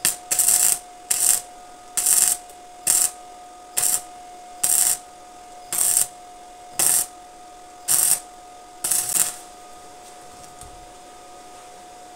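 Electric arc welding on bicycle frame tubing: short stitch welds, about eleven brief crackling bursts of the arc roughly one a second, stopping after about nine seconds. A faint steady whine runs underneath.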